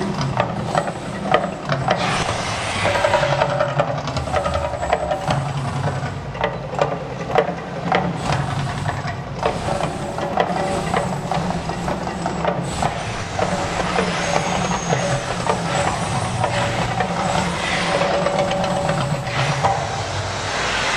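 Mirage volcano show: a steady roar and hiss of gas flame effects over the show's loud amplified soundtrack of low rumbling tones and sharp percussive hits. Near the end it swells with the whoosh of a fireball.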